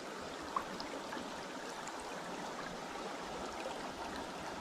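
Steady rush of a flowing trout stream, with a small tick about half a second in.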